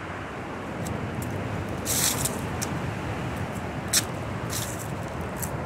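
Steady rushing noise of wind and breaking surf, with a deep rumble underneath. A few short, sharp scrapes or clicks come about two and four seconds in.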